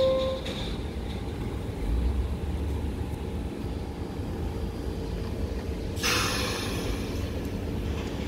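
R46 subway train standing at the platform with a steady low rumble and hum from its equipment, just after a door chime ends. About six seconds in comes a sudden loud burst of air hiss that then trails off softer, the air brakes releasing as the train gets ready to pull out.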